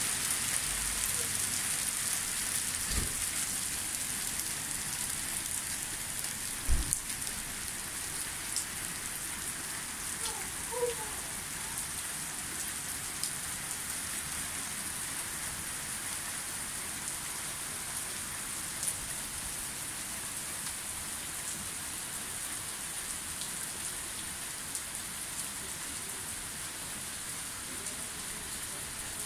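Small hail and rain falling steadily on a paved patio: a dense, even patter with scattered sharper ticks. Two dull thumps stand out, about three and seven seconds in.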